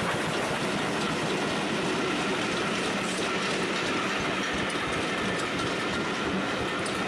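A rake of passenger coaches behind a steam train rolling past. The wheels make a steady rumble on the rails, with faint clicks from the rail joints.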